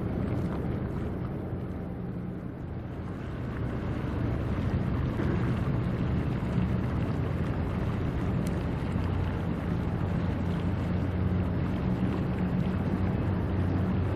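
Low steady drone of a ship's engine, with wind noise on the microphone; it grows louder about four seconds in.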